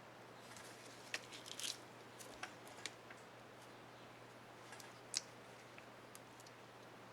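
Small plastic clicks and light scratching from a laptop keycap and its plastic retainer clips being handled on the keyboard, with a few sharper clicks, the loudest about five seconds in.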